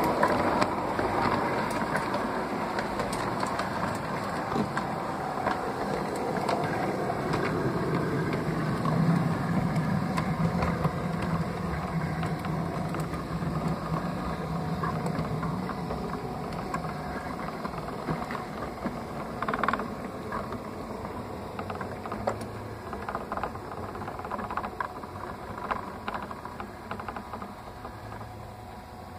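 LGB model rack locomotive and its coaches running on the track, heard from aboard the train: a steady motor hum with scattered clicks from the wheels over the rails, slowly getting quieter toward the end as the train slows.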